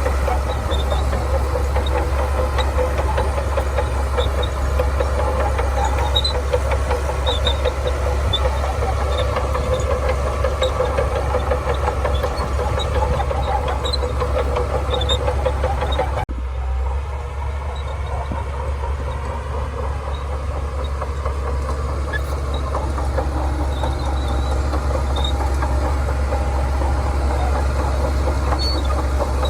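Shantui bulldozer's diesel engine running steadily under load while it pushes and spreads sand. About halfway through the sound changes abruptly and drops a little in level.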